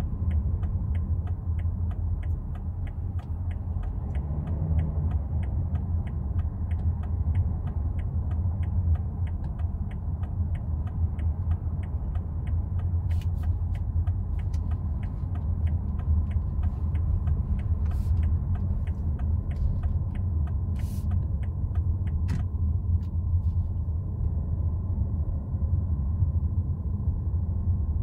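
Inside the cabin of a BMW X3 xDrive30d with its 3.0-litre straight-six diesel, driving in city traffic: a steady low rumble of engine and tyres. Over it runs an even, rapid ticking that stops about 22 seconds in, with a few sharper clicks along the way.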